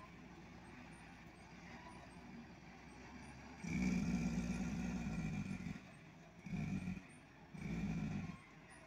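Diesel engine of a log truck loaded with pine logs, moving slowly down a steep dirt track. It runs low and steady, then surges louder three times: a burst of about two seconds just past the middle, then two shorter ones near the end.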